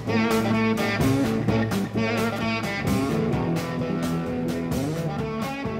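Background music with a quick, steady run of notes.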